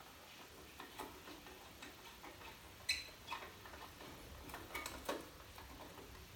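A few faint, scattered clicks and light taps of small hard parts being handled, the sharpest about three seconds in.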